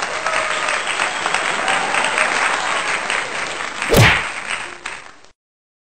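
Crowd applause and cheering, a dense steady patter of many clapping hands. About four seconds in there is a single loud impact-like hit with a low thud. The applause then fades and stops shortly before the end.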